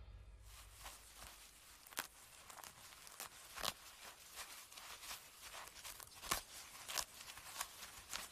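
Common warthog cropping and chewing grass: faint, irregular tearing crunches.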